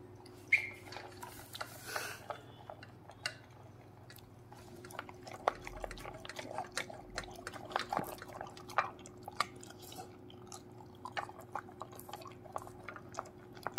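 A golden retriever eating dry kibble from a stainless steel bowl: irregular crunching, with clicks of kibble and muzzle against the metal.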